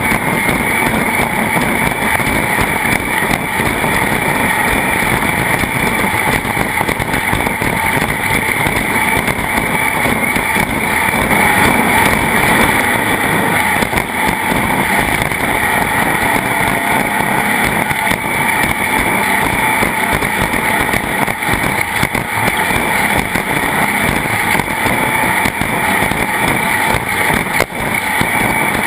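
Steady, loud rushing noise of a boat under way, carrying on without a break or change.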